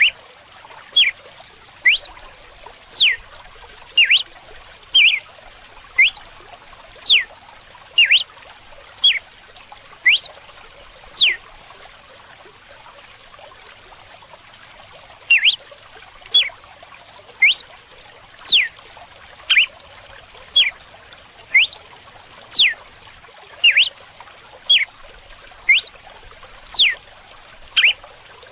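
Red-cowled cardinal singing its whip-style song: sharp whistled notes that each slide steeply down, about one a second, with a pause of about three seconds midway. A steady trickle of running water goes on underneath.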